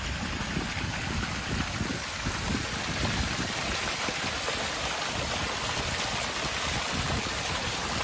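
Stream water running steadily, an even hiss with no break.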